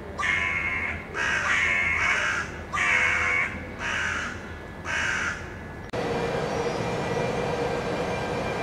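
A crow cawing five times, about a second apart. About six seconds in, the sound cuts to the steady running noise of a train, with a faint tone held underneath.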